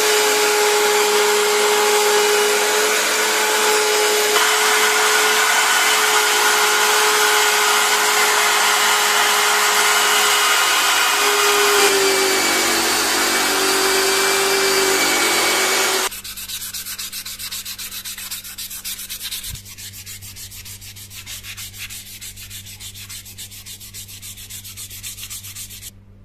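Rotary tool with a sanding drum running while a wooden knife handle is pressed against it and shaped, a steady motor whine under loud abrasive noise, the pitch dipping about 12 s in as the tool is loaded. It stops abruptly about 16 s in, leaving a much quieter low hum with faint even ticking.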